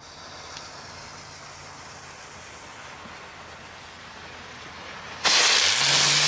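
Small novelty firework lit and going off: a sudden loud hiss of burning composition about five seconds in, with a low hum rising in pitch as it spins up, over a softer steady hiss.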